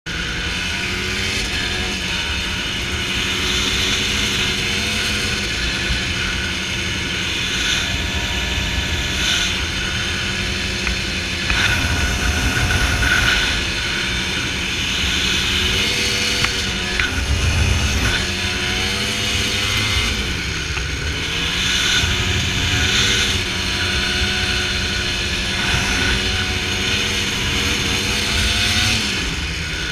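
Dirt bike engine running at a steady cruising throttle, its pitch dipping and coming back up a couple of times, under heavy wind buffeting on the microphone.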